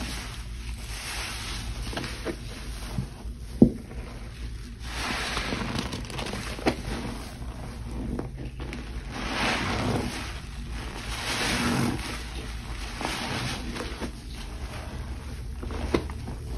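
Frothy soapy water being swished and sloshed in repeated surges, each about a second long, with a few sharp knocks, the loudest about three and a half seconds in.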